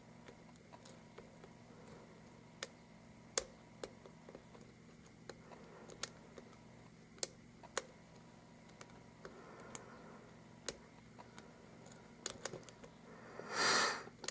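Lock pick working the pin stack of an Abus 83/45 padlock under very light tension: scattered faint ticks and clicks of the pick on the pins and pins setting, at irregular times. Near the end, a short rushing noise, louder than the clicks.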